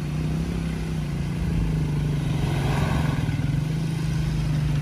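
A motor vehicle's engine running steadily at a constant pitch, with a brief swell of higher noise around the middle.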